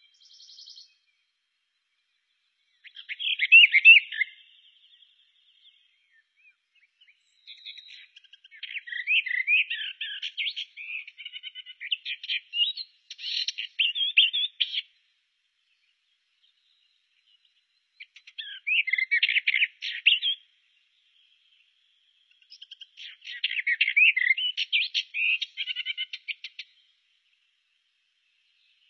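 Eastern Orphean Warbler singing: four bursts of rapid warbling phrases, the second one the longest, separated by pauses of a few seconds.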